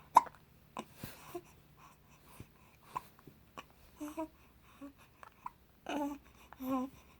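Baby hiccuping: a sharp, loud hiccup just after the start, then softer hiccups at irregular intervals, and two short coos or babbles near the end.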